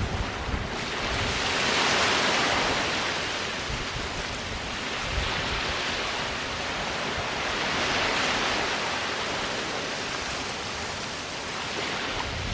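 Waves breaking and washing up on a sandy beach, a steady surf hiss that swells twice, about six seconds apart.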